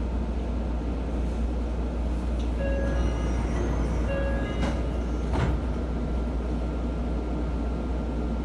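Meitetsu 2200 series train car with a steady low hum. Two short electronic tones sound about three and four seconds in, and a single knock follows about a second later.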